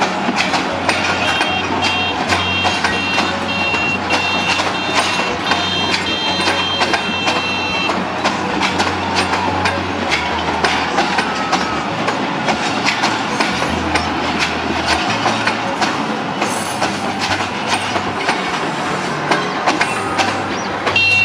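Passenger train coaches rolling slowly along the track, their wheels clattering over the rails, under steady street noise. A repeated high beeping sounds over the first several seconds.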